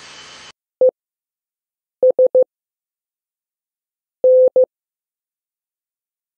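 Morse code sent as a steady beep tone of about 500 Hz at a slow pace with long gaps between letters: one short beep (E), three short beeps (S), then a long beep and a short one (N). These are the day's Morse practice letters.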